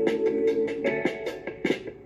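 Music between sung lines: instruments playing, a held note giving way to short plucked notes and a steady beat, growing quieter near the end.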